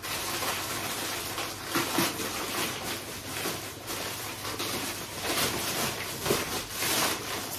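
Plastic bags crinkling and rustling steadily as they are handled and dug into by hand.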